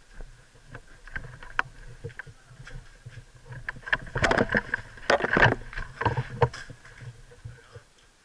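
Close clatter of clicks and knocks from an airsoft player's gear and replica rifle. It is scattered at first and thickens into a dense, loud run of clicks from about four to six and a half seconds in, then thins out.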